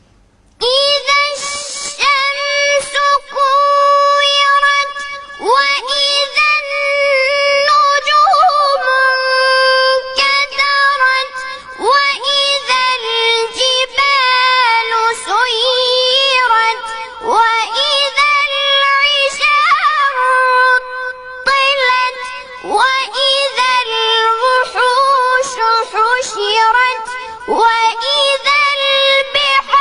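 Melodic Quran recitation in a high-pitched voice, long ornamented notes sung in phrases with short breaths between them.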